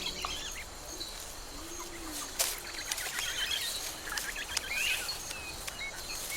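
Wetland ambience: scattered short bird chirps and calls over a steady natural hiss, with a few sharp clicks.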